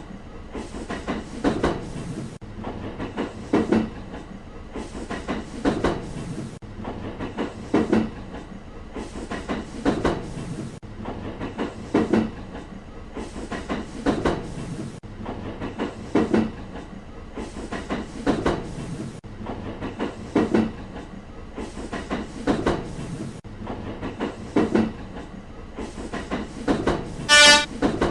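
A passing train's wheels clacking over the rail joints: a cluster of knocks comes about every two seconds over a steady rumble. A brief high, pitched tone sounds near the end.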